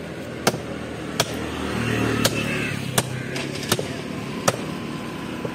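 A heavy cleaver-style knife chopping through a large barrier trevally on a wooden block: about six sharp strikes at fairly even intervals. A low vehicle rumble swells and fades in the background midway.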